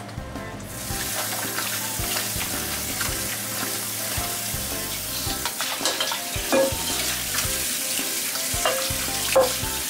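Tap water running into a stainless steel bowl as hands rinse salted squid pieces, washing the slime off, with a few knocks against the bowl near the end. The water starts about a second in.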